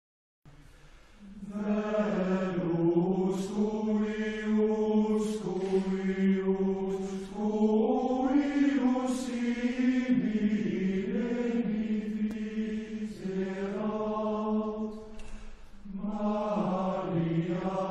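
Male voice choir singing slow, sustained chords, coming in about a second in, with a brief lull near the end before the voices swell again.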